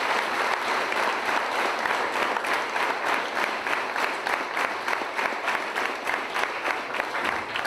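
Large audience of schoolboys applauding in a hall, the clapping settling into an even beat of about three claps a second partway through and fading near the end.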